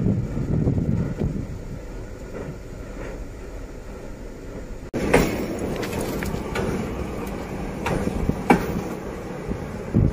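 D11H diesel locomotive running on the line, a steady low rumble that jumps louder about five seconds in as it passes close by. Its wheels knock sharply over the rails several times during the close pass.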